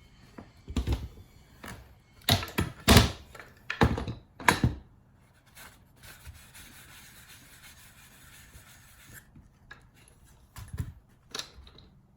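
Handling noise from a paper towel and a linseed oil bottle as oil is put on the bare wood ends of a canoe yoke. Several sharp clunks and knocks come in the first few seconds, then about three seconds of steady soft rustling, then two more knocks near the end.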